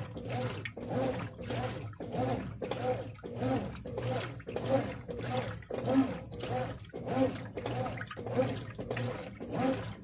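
Brastemp Advantech Wash 6 kg top-loading washing machine agitating its load in the first rinse of the delicate cycle: water sloshing with each swing of the agitator, about one and a half swishes a second, over a low motor hum.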